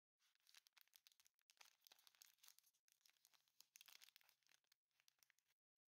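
Thin plastic snack wrapper crinkling and tearing as a single red bean mochi packet is pulled open by hand, with two brief pauses, stopping shortly before the end.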